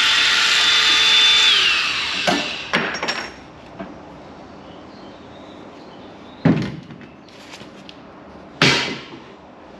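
Electric grinder running with a high whine on the rusted sill steel, then switched off and spinning down, its whine falling in pitch and fading out. A few sharp metal knocks follow as work goes on, the loudest two about six and a half and eight and a half seconds in.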